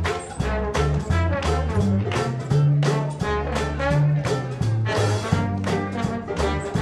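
Traditional jazz band playing live: trombone and trumpet with clarinet over banjo, bass and drums, keeping a steady swing beat.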